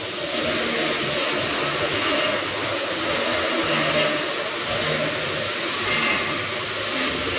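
Arc welding on a steel beam: a steady hissing noise at an even level, with no clear break.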